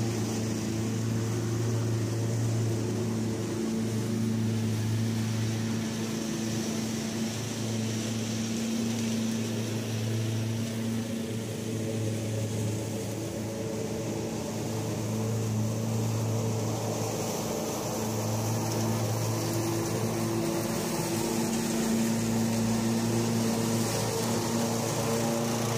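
Kubota ZG222 zero-turn mower and its towed Cyclone Rake leaf vacuum running: a steady engine drone with the rush of the vacuum's blower. It fades a little midway as the rig moves off and grows louder again near the end as it comes back.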